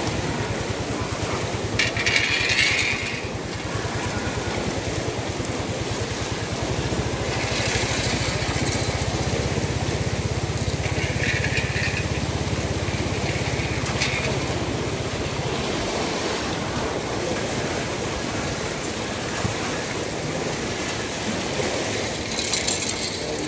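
A small engine running steadily, with a continuous low, rapid chugging. Short bursts of hissing noise come about two seconds in, around eight and eleven seconds, and again near the end.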